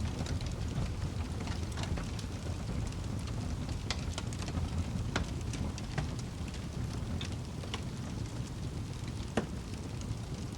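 Wood fire burning in a fireplace: a steady low rumble of flames with scattered sharp crackles and pops, the loudest about nine seconds in.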